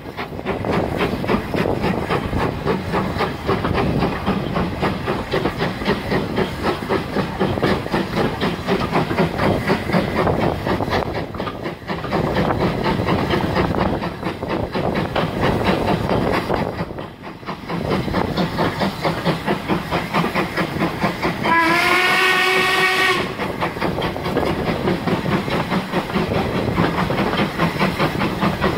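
Steam locomotive working, with a fast, even beat and hiss throughout. About three quarters of the way in it gives one whistle blast of about a second and a half, which glides up slightly as it starts.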